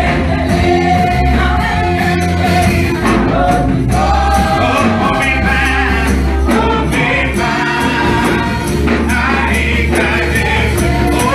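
Gospel music from a live band: singers over bass and a steady drum beat.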